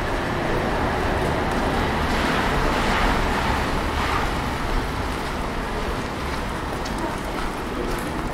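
A car passing on a wet street, its tyre hiss swelling about two to four seconds in and fading back into steady street noise.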